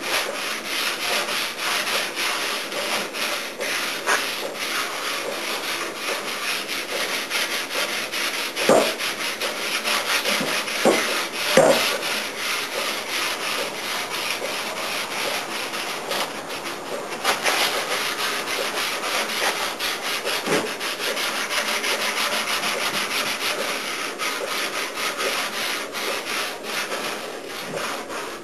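Sandpaper scrubbed back and forth over a 1966 VW Beetle's repaired body panel in quick strokes, sanding to find the high and low spots, with a few brief knocks about a third of the way in.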